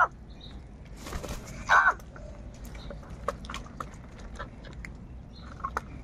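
House crows feeding: one loud harsh caw just under two seconds in, with light pecking taps and clicks scattered throughout.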